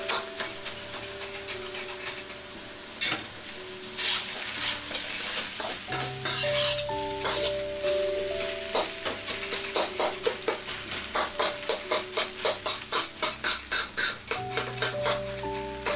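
Rice, chicken and vegetables sizzling in a hot steel wok while a metal spatula scrapes and knocks against the wok as it stirs the rice. The strokes come quick and regular, about four a second, in the second half.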